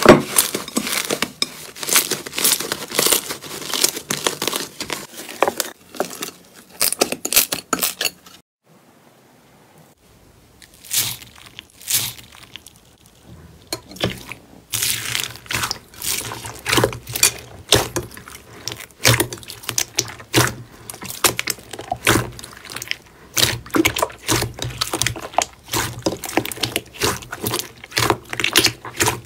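Slime being squeezed, stretched and poked by hand: rapid sticky crackling and popping. There is a quiet break of about two seconds roughly a third of the way in.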